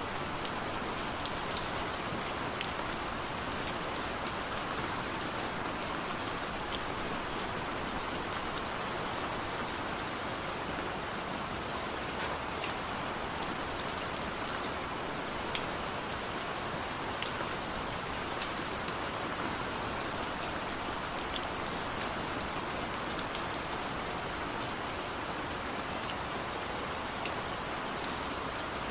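Steady rain falling, an even hiss with many distinct drops ticking on a surface close by.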